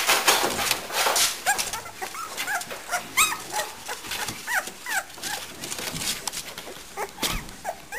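Young bull terrier puppies squeaking and whimpering: many short, high cries that rise and fall in pitch, coming thickly at first and growing sparser toward the end.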